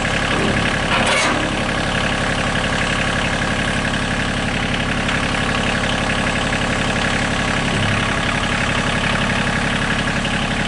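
Kioti CK2610 compact tractor's three-cylinder diesel engine idling steadily, with a brief clatter about a second in.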